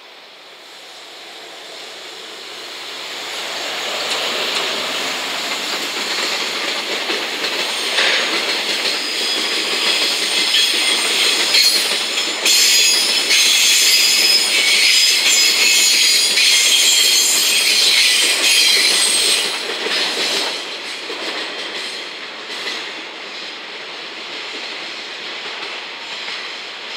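Electric freight train, an EF210 locomotive hauling flat wagons loaded with rails, passing close by. The sound builds over the first few seconds as the locomotive approaches. The wagons then roll past with high-pitched wheel squeal through the middle, the loudest part, and the sound drops away after about twenty seconds as the train moves off round the curve.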